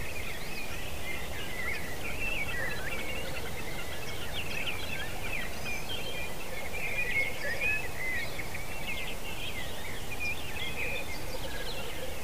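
Black grouse lek: the faint, continuous low bubbling of displaying males under a busy stream of high, quick bird chirps and twitters.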